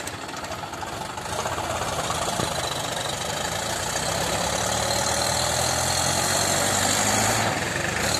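Tractor diesel engine running hard under load as the tractor strains to get out of deep mud. It picks up about a second in and eases back near the end.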